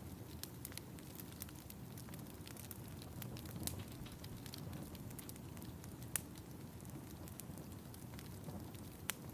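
Fire crackling in a fireplace: a steady low rumble with scattered sharp pops, the loudest about six seconds in and again just after nine seconds.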